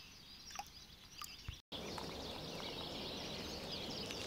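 Quiet riverside ambience with a few faint clicks, broken by an abrupt cut about a second and a half in, then a steady outdoor hiss with small birds chirping.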